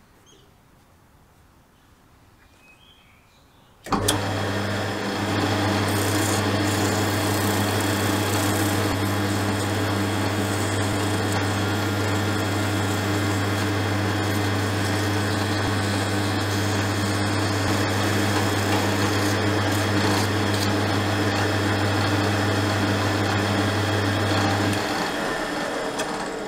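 Drill press motor switched on about four seconds in, running with a steady hum while sandpaper rubs against a small metal part spinning in the chuck. The motor cuts off near the end and the sound fades as the chuck spins down.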